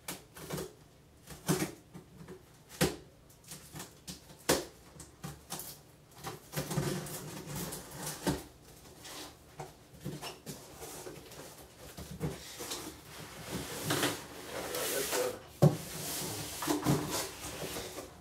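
Cardboard shipping box being opened and handled: a series of sharp knocks and clicks from the cardboard, then longer stretches of scraping and rustling as the flaps are worked open and the inner box is slid out.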